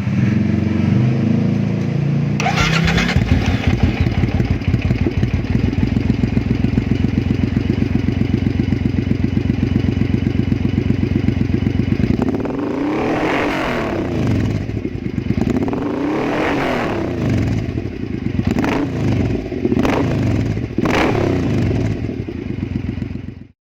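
Stock-exhaust Triumph America's 865 cc parallel-twin engine, which catches about two and a half seconds in and settles into a steady idle. It is then revved: two long rises and falls, followed by three quick throttle blips, and it cuts off suddenly at the end.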